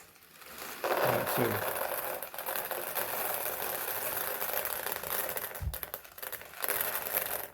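Dry popcorn kernels poured from a plastic packet into a silicone bowl: a steady granular rattle and hiss of kernels streaming in, with packet crinkle, stopping shortly before the end after a soft low thump.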